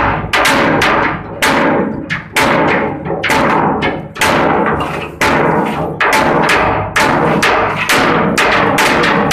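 Background music with a heavy, echoing percussive beat, one strong hit about every second with lighter hits between, over sustained tones.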